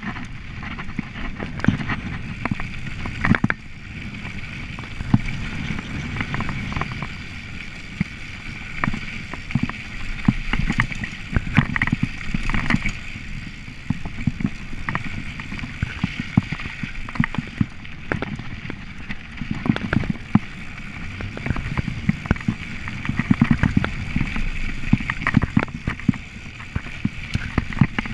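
Mountain bike rolling fast down a dirt trail: a steady rumble of tyres on dirt with frequent clicks, knocks and rattles as the bike goes over bumps and roots.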